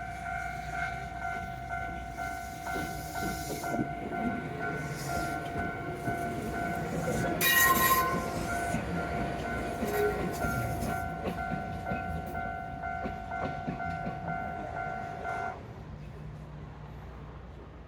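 Japanese railway level-crossing bell ringing steadily while a train rumbles over the crossing, with one short horn blast partway through. The bell stops cleanly near the end.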